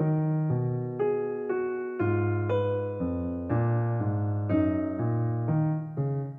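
Background piano music: gentle, sustained notes and chords that change about every half second.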